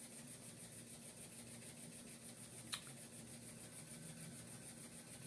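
Faint room tone: a low steady hum with a light hiss, broken once by a single short click about halfway through.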